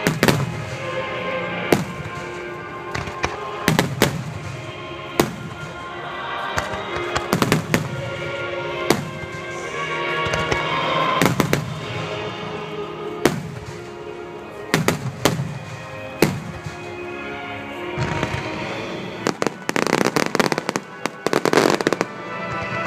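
Aerial firework shells bursting in sharp bangs every second or two, each trailing off in an echo, over music. A rapid run of bursts comes near the end.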